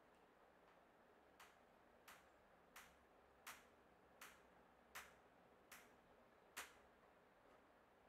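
Hand screwdriver driving a wood screw through a steel press-base foot into a tabletop, a faint sharp click with each turn of the wrist, about eight clicks at an even pace of a little more than one a second.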